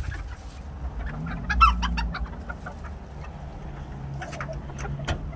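Chicken clucking in a short run of calls about one and a half seconds in, over a low steady hum.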